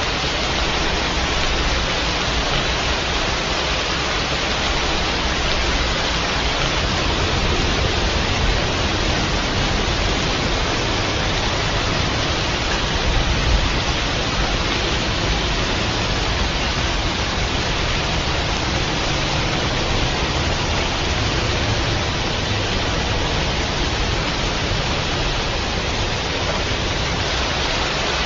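Steady, heavy rain falling: an even, continuous hiss with a low rumble underneath.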